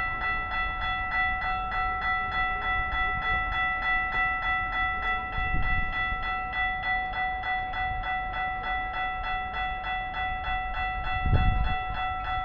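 Railroad grade-crossing bell ringing steadily at about three strokes a second, with low rumbles about halfway through and again near the end.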